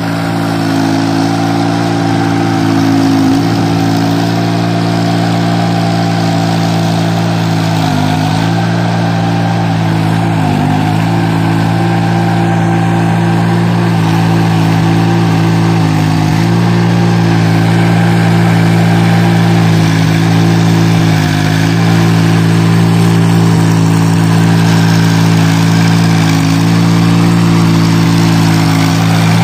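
VST Shakti mini tractor's diesel engine running steadily under load as it pulls a rotavator through flooded paddy mud. Its pitch sags briefly several times, every few seconds.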